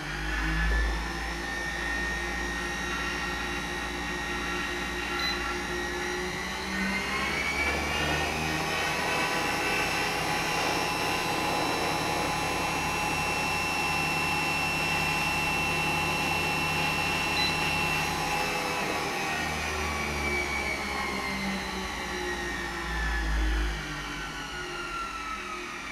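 Actuell KP-4000P treadmill's DC drive motor running under its repaired motor control board, a whine that rises as the motor speeds up over several seconds, holds steady, then falls as it slows down near the end. Low thuds about a second in and again near the end.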